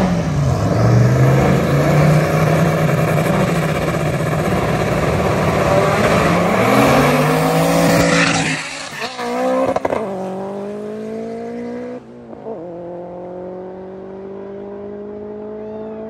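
Race cars' engines at full throttle, loud, with the pitch climbing and dropping back as they accelerate through the gears. A little past halfway the sound changes suddenly, then a quieter engine note rises slowly for the last several seconds.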